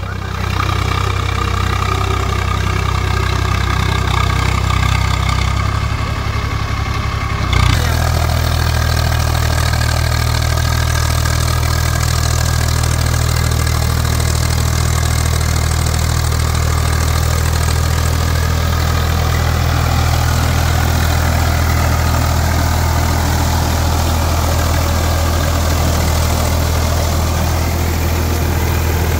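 Swaraj 744 FE tractor's three-cylinder diesel engine running steadily as it tills the field with a rotary tiller. About eight seconds in there is a brief knock, and after it the engine is closer and louder, then holds steady.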